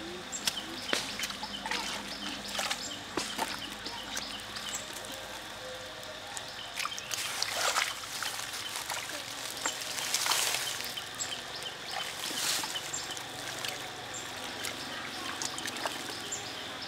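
Hands groping and sloshing in shallow muddy water: scattered drips, squelches and small splashes, with a few louder splashes, the biggest about two thirds of the way through.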